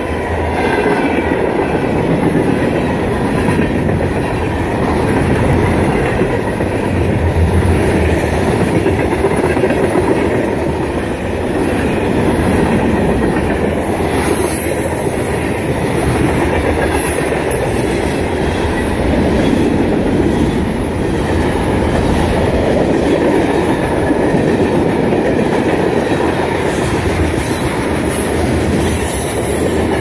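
Freight train's cars rolling past at track speed: a steady, loud rumble of steel wheels on rail.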